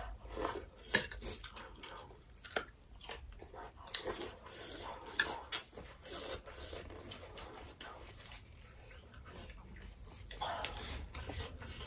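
Close-up eating sounds: chewing and wet mouth smacks, with scattered short sharp clicks.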